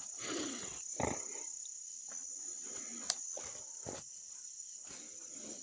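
A steady, high-pitched chorus of night insects such as crickets, with rustling and a few knocks from handling close to the microphone, including a sharp click about three seconds in.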